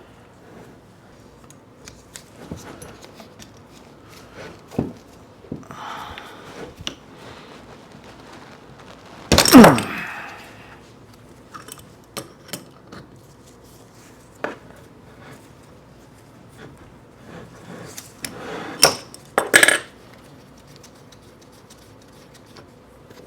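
Small metal tools and lathe parts clinking and clanking, scattered, while a Unimat SL lathe headstock is taken apart. The loudest moment, about nine and a half seconds in, is a clank with a falling squeal or scrape. Two sharp clinks come close together about nineteen seconds in.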